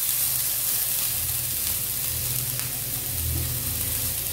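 Chopped beans, carrots and spring onions sizzling steadily in butter in a nonstick frying pan as they are lightly sautéed, with a few light scrapes of a metal spoon stirring them.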